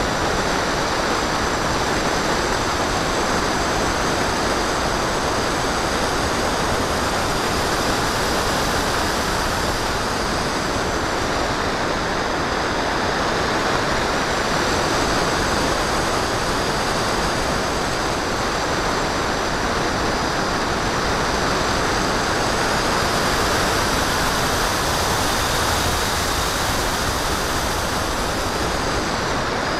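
Wind rushing over the onboard camera of a Phantom FX61 flying wing in flight, with the high whine of its electric motor and propeller above it. The whine drops in pitch about a third of the way in, then climbs higher near the end before falling again.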